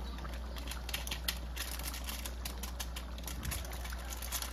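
Pork igado sauce with vinegar simmering uncovered in a wok, making quick, irregular light pops and crackles over a steady low hum.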